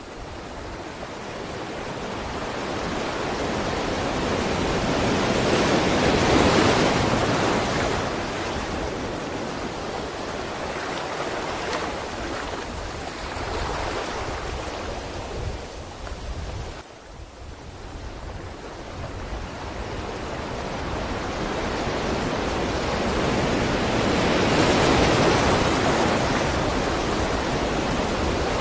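Sea waves surging and washing in on the shore, a steady rush of surf that builds to a big swell about six seconds in and again near the end, with a short lull a little past halfway.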